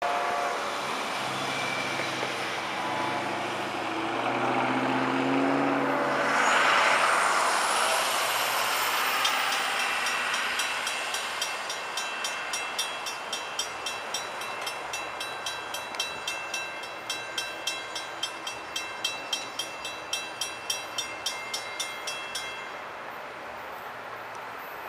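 A low engine drone builds and a road vehicle passes close by about six seconds in. A bell then rings in quick, even strokes for about ten seconds, typical of a grade-crossing signal bell, while an FEC freight train led by two diesel locomotives approaches in the distance.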